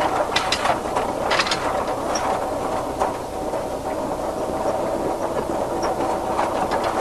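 Open hunting truck driving over rough bush ground: a steady engine and road drone with clattering knocks and rattles from the vehicle, most of them in the first second and a half.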